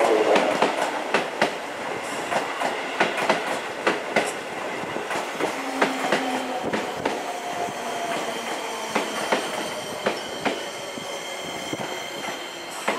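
Seibu 20000 series electric train pulling into the platform and slowing: wheels clicking irregularly over rail joints, with a high steady squeal and a motor whine that falls slowly in pitch as it brakes.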